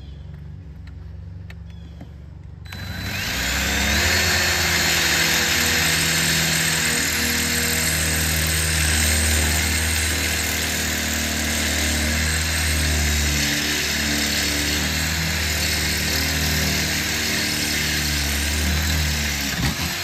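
Bostitch 18-volt cordless drill drilling out a screw hole in the metal seat frame with a slightly bigger 3/16-inch bit. It starts about three seconds in, runs steadily, and stops just before the end.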